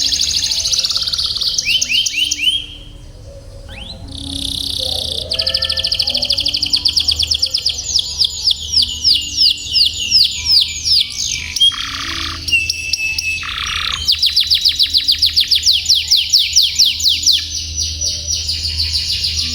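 Domestic canary singing a long song of rolling trills: fast runs of quickly repeated notes, each phrase changing speed and pitch, with a brief break about three seconds in.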